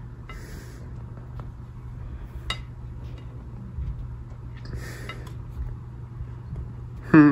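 Steady low hum with a few faint clicks of a plate being handled, one clearer about two and a half seconds in. A short pitched sound comes right at the end.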